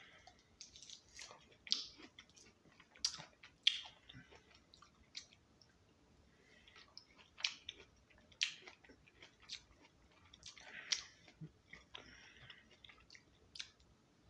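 Orange slices being chewed: irregular short smacks and clicks of biting and chewing.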